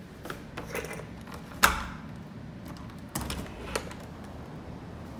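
A house door being unlocked and opened: a few light clicks from the deadbolt and knob, a sharp loud clack about a second and a half in, then a few more clicks a couple of seconds later.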